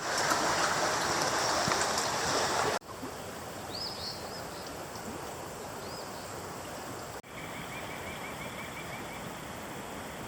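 Creek water running as a steady rush. It is louder for the first three seconds, then drops abruptly to a quieter flow. Over the quieter part come a few bird chirps, then a quick trill of about a dozen repeated notes.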